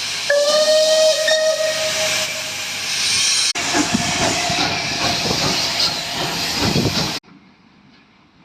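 A loud hiss with a steady whistling tone over it. It breaks off suddenly about three and a half seconds in and resumes as rougher hissing with a low rumble, which cuts off abruptly a little after seven seconds, leaving only faint noise.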